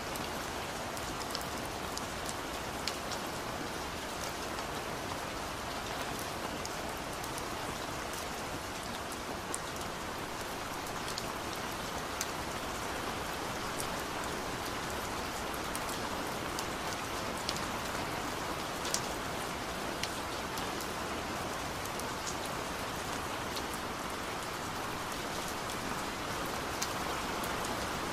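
A steady, even hiss with scattered faint ticks throughout, like rain falling on a surface.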